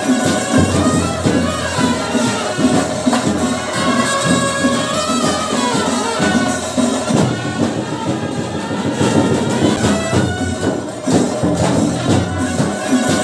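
Music: a melody over dense, continuous percussion, playing at a steady loud level.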